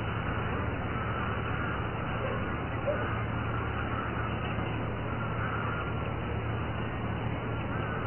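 Steady background noise: an even hiss over a constant low hum.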